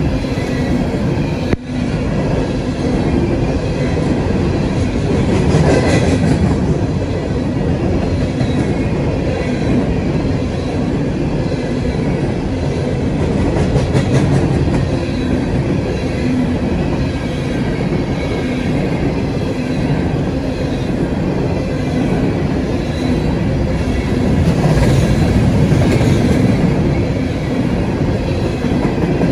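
Steel wheels of loaded-and-empty-era coal hopper cars on a CSX freight rolling past on the rail: a continuous heavy rumble that swells now and then as the trucks go by, with a short dip in level about a second and a half in.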